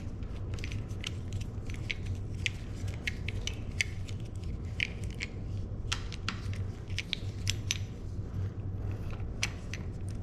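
Irregular light metallic clicks and taps from handling and fitting bicycle parts, over a steady low hum.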